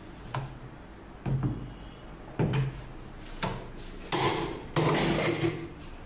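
Tool knocking on the corroded, seized centre nut at the bottom of an LG top-load washing machine drum to break it loose: about six sharp knocks roughly a second apart, the last two longer and noisier.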